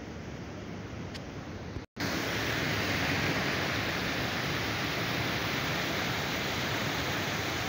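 Water pouring over a low concrete weir in a canal, a steady, even rush. It comes in suddenly and louder about two seconds in, after a softer flowing-water noise.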